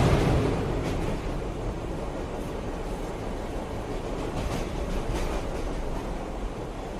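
A train's rumble on the rails, loudest at the start and easing off to a steady run, with a few faint clicks in the middle.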